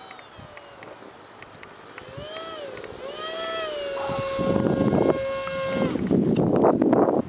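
Electric ducted fan of a micro RC jet (UMX F-16 EDF unit) whining, its pitch rising and falling with the throttle, then holding one steady note that grows louder as the jet comes in low and lands; the whine stops about six seconds in. Gusts of wind on the microphone come and go over the second half.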